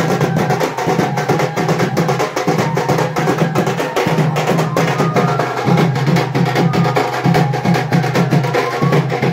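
Festive drumming: a two-headed dhol-style drum beaten in a fast, steady, unbroken rhythm.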